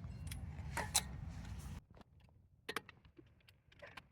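Sharp metallic clicks and clinks of hand tools on wheel lug nuts as a wheel is torqued back on, the loudest click about a second in, over a low rumble that cuts off suddenly partway through and leaves only scattered light clinks.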